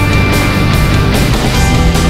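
Loud rock music with a fast, steady beat, laid over the footage as a soundtrack.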